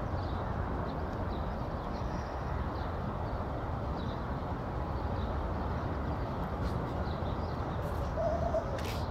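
Steady low outdoor background noise, with faint scattered bird chirps and a short, low, wavering bird call near the end.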